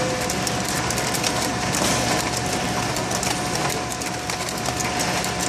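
Produce-handling machine running, with a dense, continuous clatter of cherry tomatoes tumbling through a stainless-steel hopper and down a chute onto a conveyor, over a steady mechanical hum and a thin high tone.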